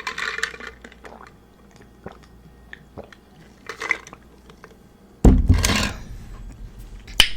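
Close-miked eating: soft chewing and wet mouth sounds with scattered small clicks, and a louder burst with a heavy low thump about five seconds in.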